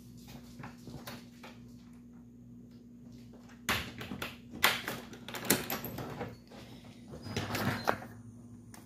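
Door being opened by its round knob: soft clicks of the latch, then a series of sharp knocks and thumps from about four seconds in, over a steady low hum.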